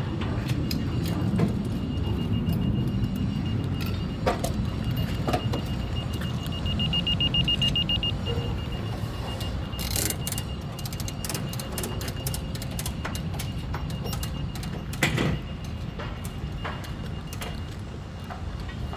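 Construction-site machinery rumbling steadily, with a thin high tone that breaks into rapid electronic beeping for a second or two near the middle, and scattered knocks and clicks, one louder about three quarters of the way through.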